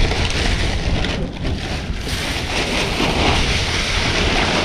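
Strong wind buffeting the microphone: a steady low rumble under a rushing hiss that swells in the second half.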